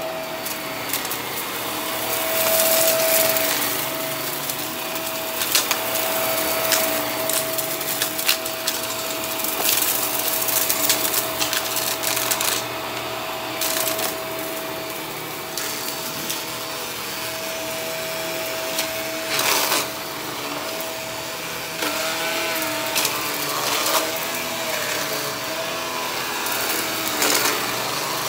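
HART stick vacuum running over carpet, its motor giving a steady whine under frequent clicks and rattles as it picks up debris, in clusters every few seconds.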